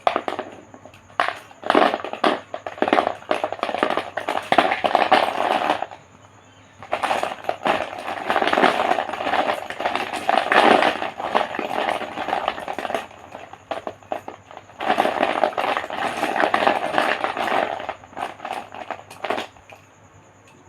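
ASMR chalk being crumbled and crushed, a dense crackling full of sharp snaps, in three long spells with short pauses between them and a few last scattered snaps near the end.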